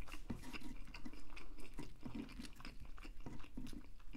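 A person chewing food close to a clip-on lavalier microphone: irregular mouth clicks and smacks, several a second.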